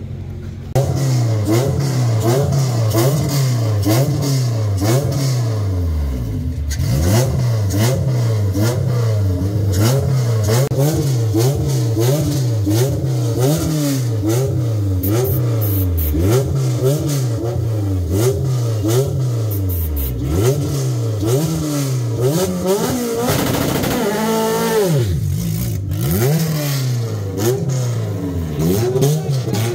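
A car engine being revved again and again, its pitch climbing and dropping back roughly once a second, with one higher rise and fall about three quarters of the way through.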